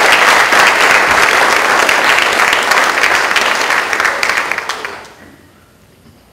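Audience applauding, the clapping fading away about five seconds in.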